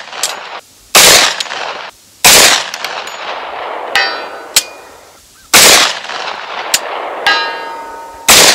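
10mm AR-style carbine fired four times at a slow, uneven pace, each a sharp crack with a trailing echo. About a second and a half after the second and third shots comes a fainter ringing ping: the bullet striking a steel target far downrange.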